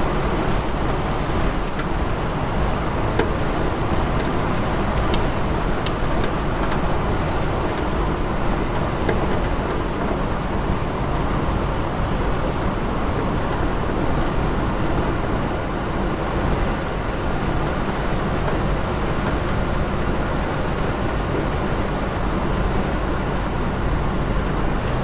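Car cruising at a steady speed on an open road: a constant engine drone with tyre and wind noise, heard from inside the cabin. Two faint clicks come about five and six seconds in.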